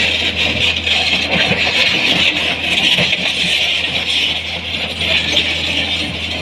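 Tata Hitachi 200 excavator running: a steady low engine hum under a loud, steady high-pitched hiss, with scattered faint knocks.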